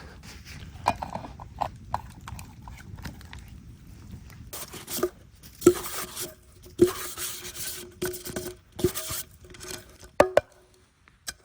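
Knocks and scraping from handling camp cookware. From about five seconds in, the knocks come every second or so, each followed by a faint ring, between bursts of scraping or crunching.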